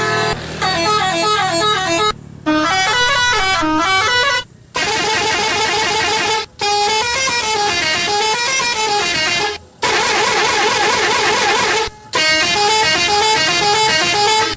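Multi-tone telolet horn of an odong-odong mini train playing fast up-and-down melodic sequences. It comes in about six short runs, each cut off abruptly by a brief gap.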